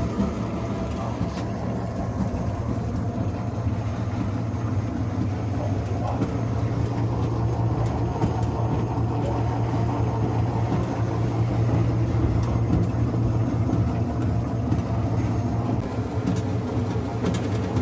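Homemade clothes dryer running, heated by a Chinese diesel air heater: a steady low mechanical hum from its motors and heater, with a few faint ticks near the end.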